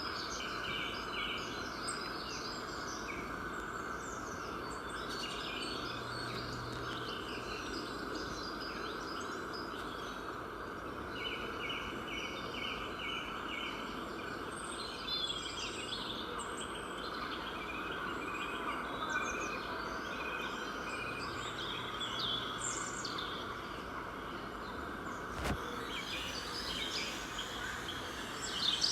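Small birds chirping and twittering, with a rapid trill of quick repeated notes heard a few times, over a steady background hiss. A single sharp click about three-quarters of the way through.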